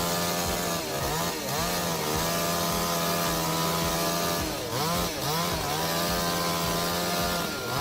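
Chainsaw engine running at high speed, its pitch dipping briefly and picking back up about a second in, around five seconds in and again near the end.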